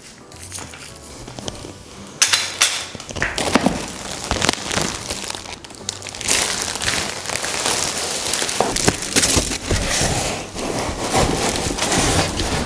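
Clear plastic wrapping and cardboard packaging crinkling and rustling as chair parts are handled and pulled from a carton, with scattered knocks. It is quieter for about the first two seconds, then turns dense and crackly.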